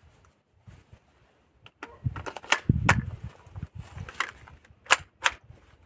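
Handling clicks of a gas blowback airsoft pistol (an Action Army AAP-01 built up as a compact AK): a run of sharp clacks, the loudest coming in two pairs less than half a second apart, with low thumps of handling between them.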